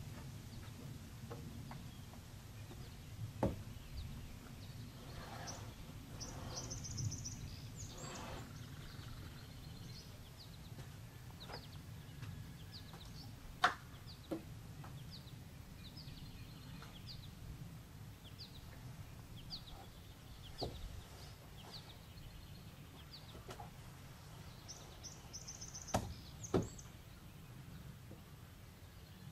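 Wooden rafter knocking against the timber wall frame as it is lifted and set into place: a few sharp knocks, the loudest about halfway through and two close together near the end. Birds chirp throughout over a low outdoor rumble.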